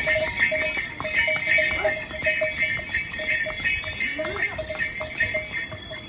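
Harness bells on passing ponies jingling in a steady, uneven patter with their stride, with hooves clopping on the stone path.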